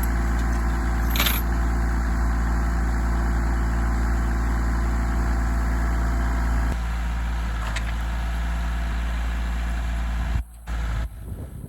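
Tractor engine running steadily at idle, with a short sharp click about a second in. The sound steps down in level about two-thirds through and drops out briefly near the end.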